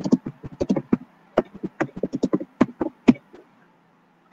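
Typing on a computer keyboard: irregular key clicks, several a second, stopping about three seconds in, then one last click at the end.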